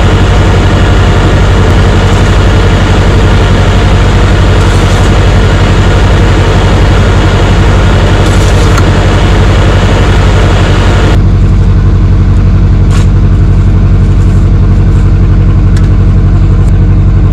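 Bobcat skid steer's diesel engine running steadily, close by, with a loud hissy upper layer that drops away abruptly about two-thirds of the way through while the low engine note carries on.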